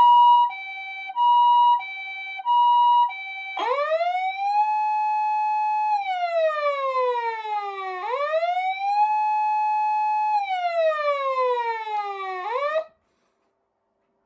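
Patlite ambulance siren sounding the Japanese two-tone hi-lo call, a higher and a lower note alternating about every half second for three cycles. About three and a half seconds in it switches to a wail that rises quickly, holds, and slides slowly down, twice, then cuts off near the end.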